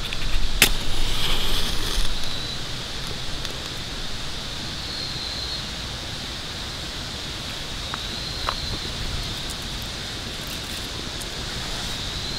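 A safety match struck on its box about half a second in, flaring with a short hiss. Then dry conifer twigs catching from the match, with a few faint crackles over a steady outdoor hiss.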